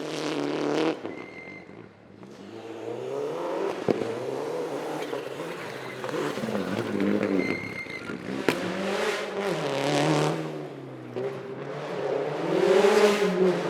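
Rally car engine revving hard and dropping back again and again as it shifts gears through a stage, louder near the end, with two sharp cracks about four and eight seconds in.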